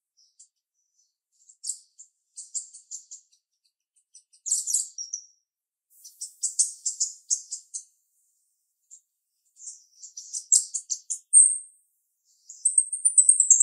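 Female jalak rio-rio (great myna) singing in a sharp, high voice. It sings in bursts of rapid chattering notes with a brief whistle, then a fast unbroken run of high notes near the end.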